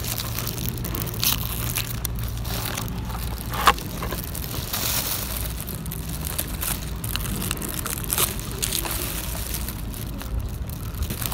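Irregular crinkling and crunching handling noise with scattered clicks, one sharper click about four seconds in, over a steady low hum.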